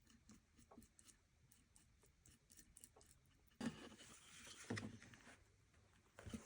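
Pieces of a wooden cutting board being handled and fitted together: faint clicks and taps, then about halfway through a scraping rub of wood against wood with a knock, and another knock near the end.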